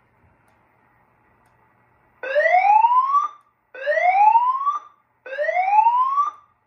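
Fire alarm voice-evacuation speaker-strobe on a Notifier NFS2-640 system sounding the emergency whoop tone for a drill: three loud rising sweeps, each about a second long, starting about two seconds in.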